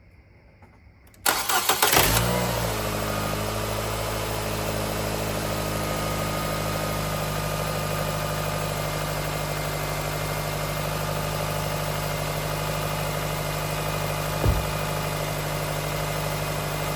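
Nissan Sentra's four-cylinder engine starting about a second in, catching at once and settling into a steady idle. It holds idle now that the vacuum hose left unplugged, the cause of the vacuum leak, has been reconnected.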